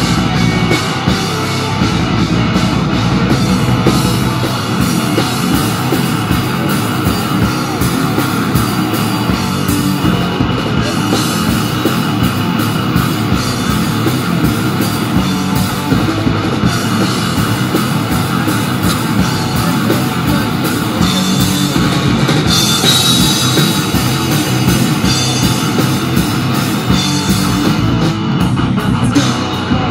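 A live metal band playing loudly: electric guitars over a drum kit.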